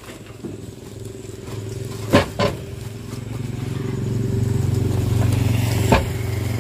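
A vehicle engine running with a low steady hum that grows louder over the first few seconds, and three sharp knocks as loaded parts are shifted about on the truck bed.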